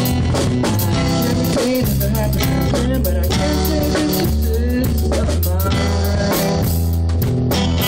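Rock-style band music with a drum kit and guitar, playing at a steady loud level.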